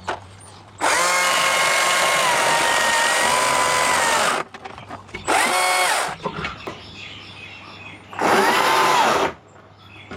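A power tool's motor run in three bursts: one long run of about three and a half seconds, then two short ones. Each speeds up with a rising pitch, holds steady, and winds down.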